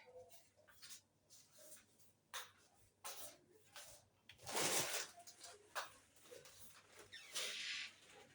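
Kitchen handling sounds: scattered light clicks and knocks, with two brief scraping noises, one about halfway through and one near the end.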